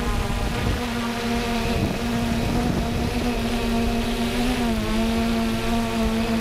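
3DR Solo quadcopter's motors and propellers whining steadily in flight, the pitch wavering briefly about four and a half seconds in, over a low rumble.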